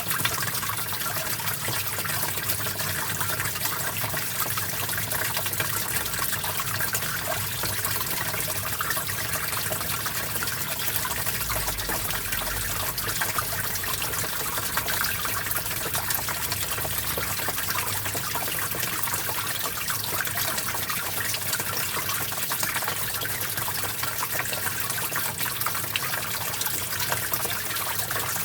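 Small stream flowing over stones, a steady trickling and splashing babble of water.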